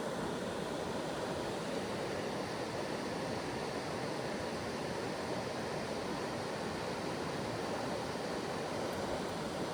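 Steady rush of a mountain creek flowing over rocks, an even noise without breaks.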